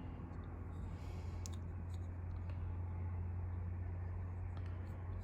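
A few faint clicks from a small diecast toy truck being handled and turned over, over a steady low hum.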